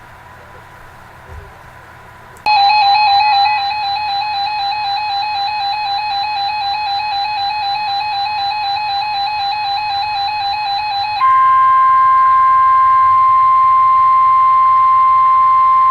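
Weather-radio alert: after a couple of seconds of faint radio hiss, an electronic alarm tone comes on with a slight rapid pulsing warble. About nine seconds later it gives way to the steady 1050 Hz NOAA Weather Radio warning alarm tone, which signals that a new warning broadcast is starting.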